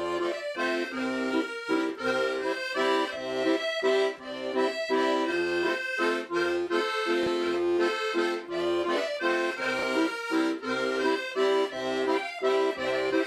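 Instrumental background music: sustained reedy chords over a regular pulsing bass line.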